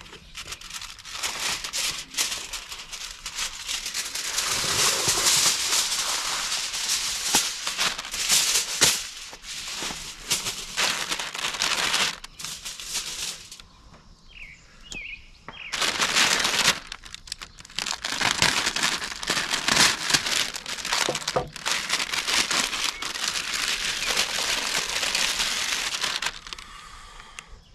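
Aluminum foil being pulled off the roll and spread flat on a table, crinkling in two long spells with a pause around the middle. A few short high chirps sound in the pause.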